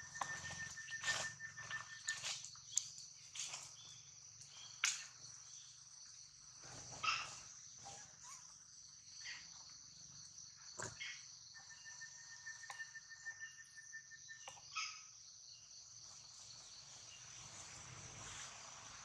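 Steady high-pitched insect chorus, joined twice by a second, rapidly pulsing insect trill that comes and goes. Scattered short clicks and rustles are heard over it.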